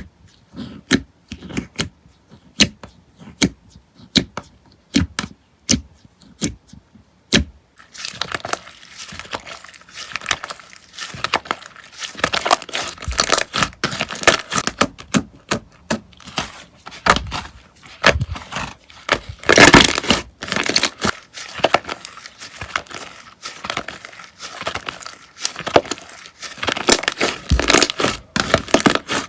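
Slime being worked by hand: scattered sticky clicks and pops for the first seven seconds or so, then from about eight seconds in a dense, continuous crackling and crinkling as it is squeezed and stretched.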